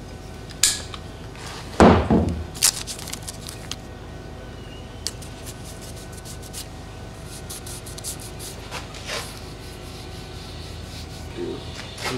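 Handling noise while masking a bed-lined subwoofer box: a heavy thump about two seconds in and a few sharp clicks, then blue painter's tape torn and pressed down, with fine crackling and rubbing against the textured surface.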